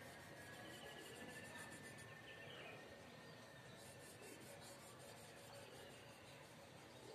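Faint rubbing of a marker pen on a whiteboard, drawing runs of quick short strokes over a low steady hiss.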